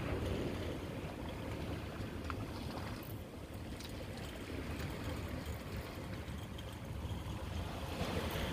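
Wind buffeting the microphone in a steady low rumble, over waves washing against a rocky shoreline.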